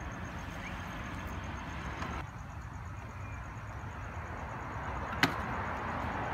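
Steady outdoor background of low rumble and hiss, which shifts slightly about two seconds in, with one sharp click about five seconds in.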